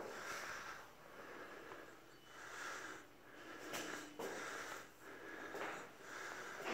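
Faint breathing of the person holding the phone, close to its microphone: soft in-and-out breaths about once a second, with a couple of light clicks in the middle.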